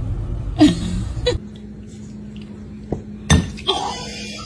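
A kitten meows once with a falling pitch. Then, about three seconds in, a ceramic bowl clinks and clatters as a cat knocks it over.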